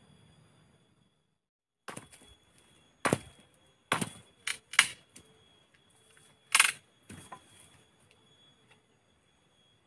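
Machete chopping at a wooden stick: about seven sharp, uneven strikes, the loudest three about three, five and six and a half seconds in.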